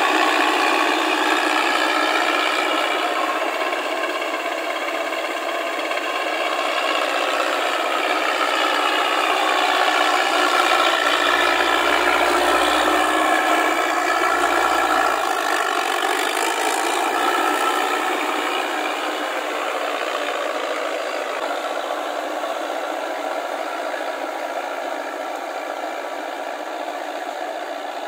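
Small paddy tractor's engine running under load while its rotary tiller churns wet mud and its steel tracks rattle, with a steady clatter that grows fainter toward the end as it moves away.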